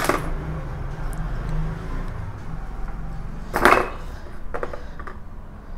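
Hands handling a refrigerator compressor's start relay and a screwdriver: a sharp click at the start and a louder clack about three and a half seconds in, over a low steady hum.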